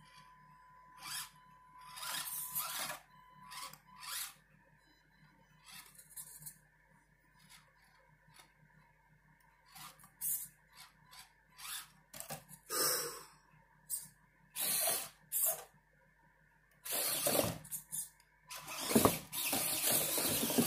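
Axial SCX24 Deadbolt micro RC crawler's small electric motor and gears whining in short throttle bursts as it crawls over rocks, with its tires scrabbling on the stone. Near the end the bursts grow louder and longer as it climbs.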